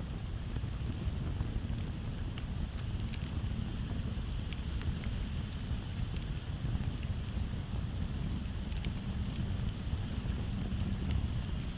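Campfire crackling, with frequent irregular pops and snaps over a steady low rumble. Crickets chirp steadily in the background.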